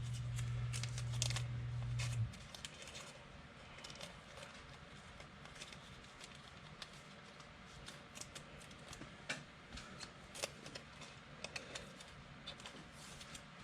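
Football trading cards being handled and flipped through: irregular light clicks and snaps of card stock. A low steady hum stops about two seconds in.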